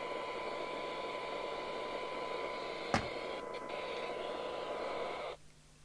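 Steady radio hiss with a faint steady tone from the CB radio test setup while the radio is keyed to transmit. A single click comes about halfway, and the hiss cuts off suddenly near the end.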